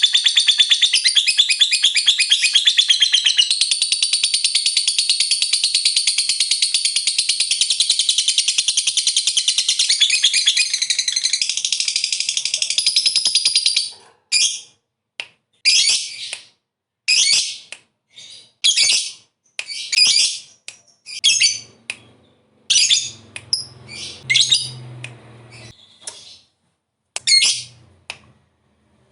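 Lovebird singing its long 'ngekek': a fast, unbroken, high-pitched chattering trill that runs for about fourteen seconds. It then breaks off into short separate chirps, about one a second.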